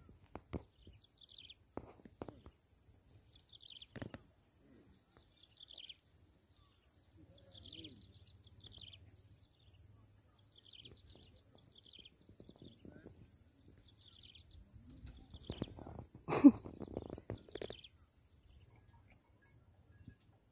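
A bird calling over and over in short, high chirping phrases every second or two, over a steady high hiss. Scattered clicks and rustles of movement through grass, and one short, louder sound about sixteen seconds in.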